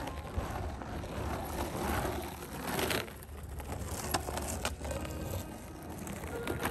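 Shark Wheel skateboard wheels on a surfskate rolling over rough asphalt and loose gravel, a continuous gritty rumble that swells twice in the middle as the board comes close, with a few sharp clicks of grit later on.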